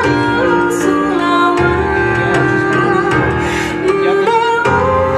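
Slow music of long held notes. The low bass drops away for a while in the middle and comes back near the end.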